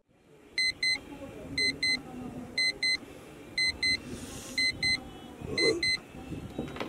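Electronic alarm beeping in pairs, two short high beeps repeating about once a second, six times over, above a low steady background hiss.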